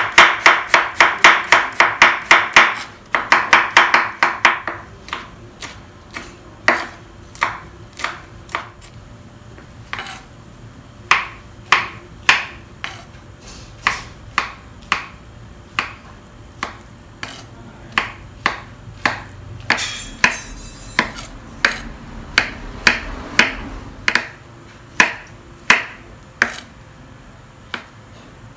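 Chef's knife chopping on a wooden cutting board: a fast run of chops, about four a second, for the first four seconds or so as garlic is minced, then slower single cuts about once a second as meatballs are sliced.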